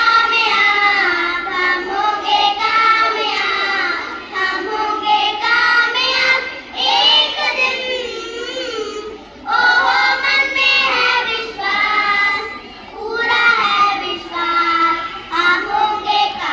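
A group of children singing an Independence Day song together, in sung phrases broken by short pauses.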